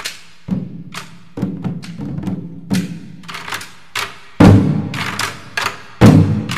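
Percussion-led background music: a run of sharp drum strikes, each with a short low ring, building in weight, with the heaviest hits about four and six seconds in.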